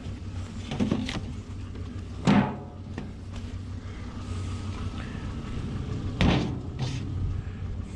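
A few knocks and clanks from handling metal scrap such as tins, the loudest about two seconds in and another about six seconds in, over a steady low hum of an idling vehicle.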